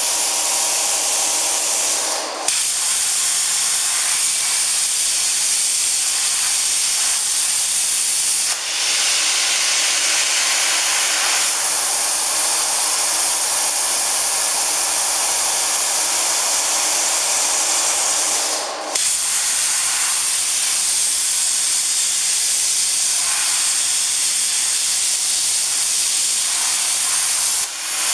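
CNC oxy-fuel cutting torch hissing steadily as its oxygen jet cuts steel plate, with a few brief breaks.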